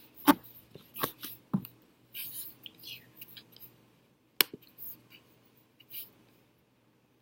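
Scattered sharp clicks, four of them a second or more apart, with short rustling sounds in between, like handling noise.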